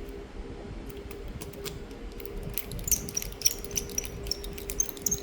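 Light clicks and taps of small phone parts and tools being handled, getting busier about halfway through, over a steady low hum.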